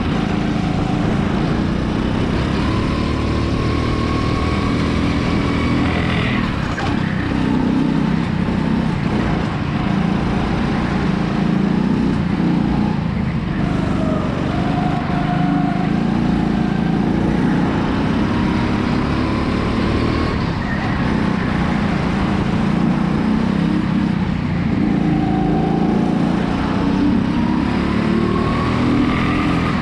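Go-kart engine running hard, recorded from the kart itself. Its pitch rises and falls over and over as the kart accelerates and brakes through the corners.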